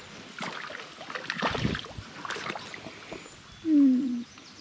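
Creek water splashing and sloshing in short irregular bursts as a hooked brown trout is handled and let go in the stream, with a brief low voiced 'mm' near the end.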